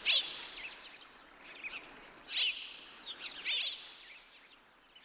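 Birds chirping: groups of short, high, sweeping calls a second or so apart, each trailing a faint echo, over a soft steady hiss. The calls thin out near the end.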